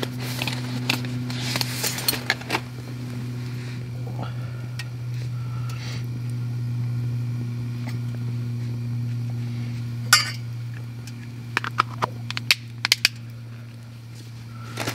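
Camp cookware and utensils clinking and knocking while being handled: a few sharp clinks in the first couple of seconds, a loud one about ten seconds in, and a quick run of them near the end, over a steady low hum.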